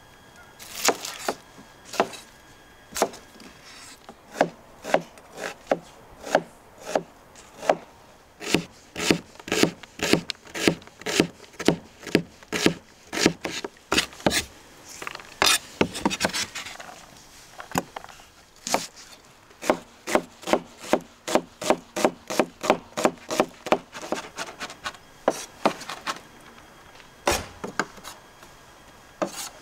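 Broad-bladed knife chopping onion on a wooden cutting board: many sharp knocks of the blade on the wood, sometimes spaced out and sometimes in quick runs of two or three a second, with short pauses between runs.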